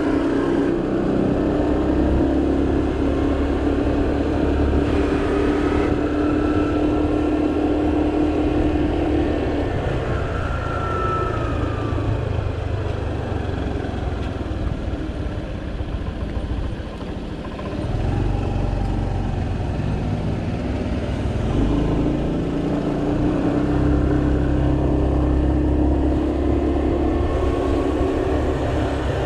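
Small 125cc-class motorcycle engine running at a steady cruising speed. About a third of the way in it eases off and slows almost to a stop, then picks up speed and settles back to a steady run.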